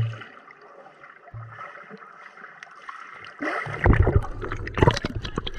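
Underwater sound of a river heard through an action camera's housing: a muffled hiss and gurgling with a couple of short low knocks. From about three and a half seconds in come loud splashing and sloshing as the camera moves through the water near the surface.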